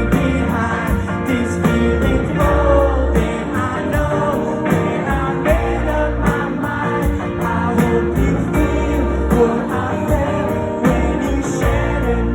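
A pop song playing, with sung vocals over a band and a steady beat.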